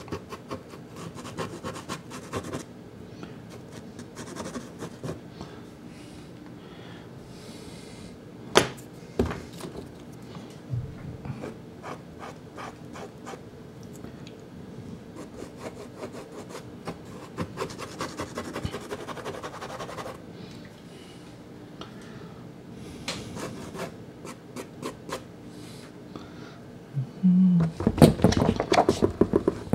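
Soft pastel stick scratching and rubbing across Sennelier La Carte pastel card, with fingers blending the colour in. A single sharp tap comes about eight and a half seconds in, and a fast run of scratchy strokes near the end is the loudest part.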